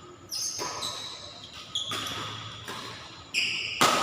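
Badminton rackets striking a shuttlecock in a rally: about five sharp hits, each with a brief high ping from the strings that rings off quickly, the last two coming close together near the end.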